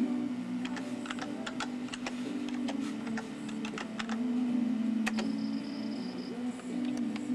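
Keystrokes on a computer keyboard as a dial-up login password is typed: a run of quick taps over about four seconds, ending with one louder click about five seconds in as the connection is started.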